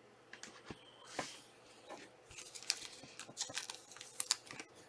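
Trading cards being handled: a quick run of soft flicks, clicks and rustles as cards slide against one another.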